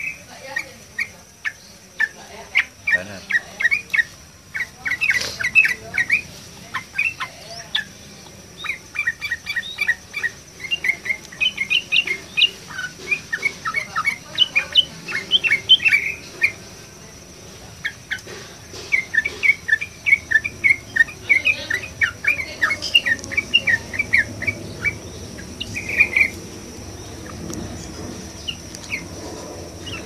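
Yellow-vented bulbul (trucukan) in full song, pouring out rapid runs of short chirping notes in bursts with a few brief pauses.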